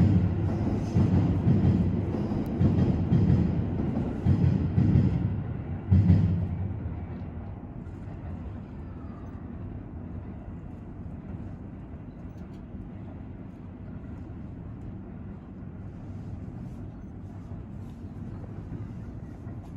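A train passing close by: a loud rumble with repeated knocks for the first six seconds or so, then dying down to a quieter, steady rumble as it moves away.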